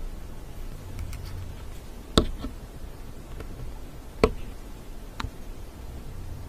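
Plastic-cupped jellies being set down one by one on a wooden board: two sharp taps about two seconds apart, a softer one about a second later, and a few faint ticks between them.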